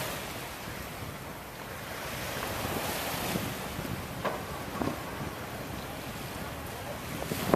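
Wind buffeting the microphone over water washing and lapping, with a few short splashes partway through.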